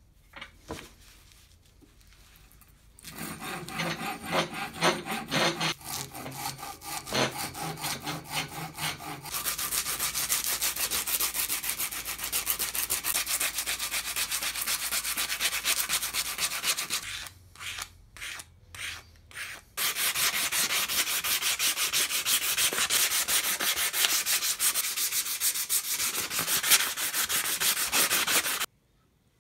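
Sandpaper rubbed rapidly back and forth over an old wooden tool handle, the dry scratching of hand sanding. It starts a few seconds in, runs in two long spells broken by a handful of short strokes midway, and cuts off suddenly near the end.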